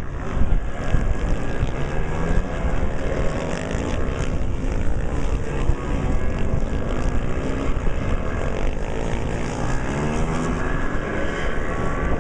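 Several single-cylinder supermoto motorcycle engines racing past, revving up and down through the gears, several pitches overlapping and rising and falling.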